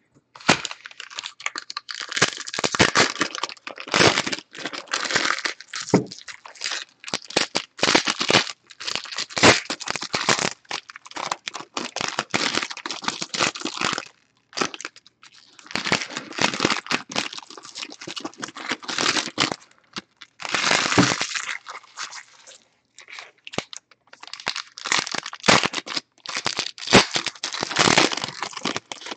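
Foil wrappers of Score football trading card packs crinkling and tearing as the packs are ripped open by hand. A dense run of crackling with a few short breaks.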